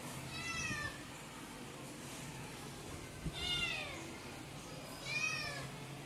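A young tabby kitten meowing three times, short high calls that each fall in pitch, begging for food. A short soft knock comes just before the second meow.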